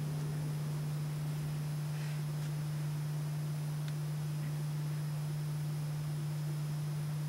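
Steady low electrical hum with constant hiss from the recording itself, with a couple of faint ticks about two and four seconds in.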